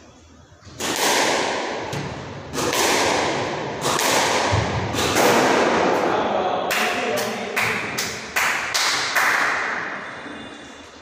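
Squash ball strikes in an echoing squash court: a series of sharp, ringing smacks, each trailing off in the hall's reverberation, irregularly spaced and coming quicker, two or three a second, in the second half.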